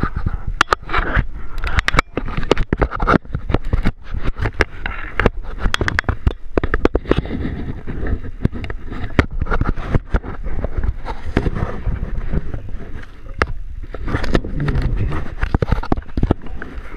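Close handling noise: irregular clicks, knocks and scraping with a low rumble, as the camera rubs and bumps against a wooden pole, its steel cable and clothing.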